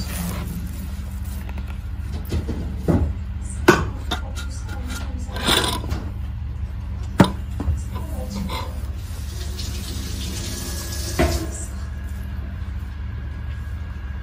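Scattered short knocks and clinks of kitchen utensils and dishes being handled, about six in all, over a steady low hum.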